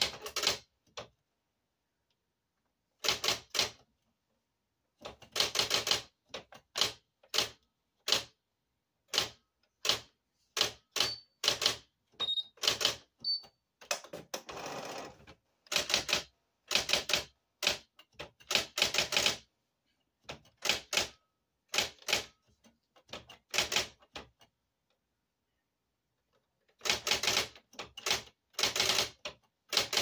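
Electric typewriter being typed on: runs of quick, sharp keystrikes in bursts, broken by short pauses, with one longer, smoother sound about halfway through.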